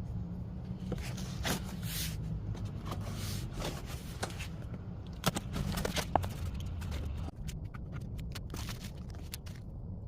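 A mailed package being opened by hand: scattered scrapes, rustles and clicks of cardboard, tape and packing material, over a low steady hum.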